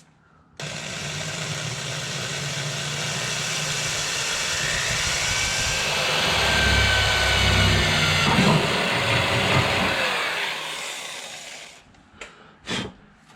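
Electric drill boring a small pilot hole through a car body panel, starting abruptly and running steadily for about eleven seconds, heavier as the bit bites midway, then stopping. Two short clicks follow near the end.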